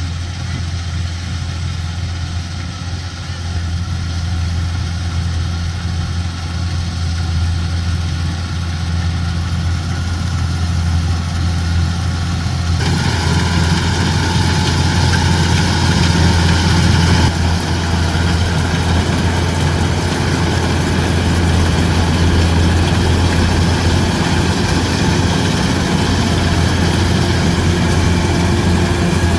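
Kubota DC-105X combine harvester's diesel engine running steadily, a constant low hum that slowly grows louder. About thirteen seconds in, a brighter mechanical rattle and whir joins it.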